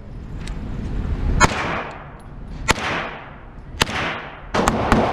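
9mm AR-9 pistol-caliber carbine firing a slow string of single shots in an indoor range. The first three come a little over a second apart and the last two close together near the end. Each crack echoes off the range walls.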